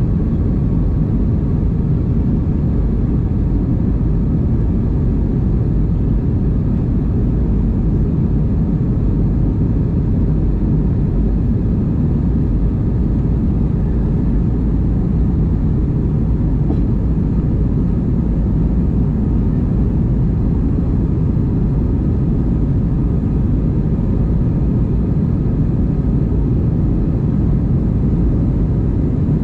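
Steady low cabin roar of an Airbus A320-232 climbing after takeoff: its IAE V2500 engines at climb thrust and the rush of air over the fuselage, heard from inside the cabin.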